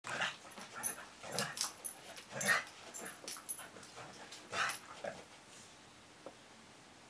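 Dog yipping and whimpering in short, sharp bursts as it chases its tail, falling quiet after about five seconds.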